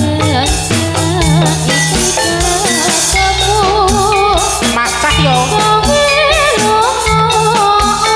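Javanese gamelan-style music for a Jathilan horse dance: tuned metal percussion and drums play a steady rhythm over low sustained tones. A singer's wavering melody with vibrato carries over it and grows clearer and louder about halfway through.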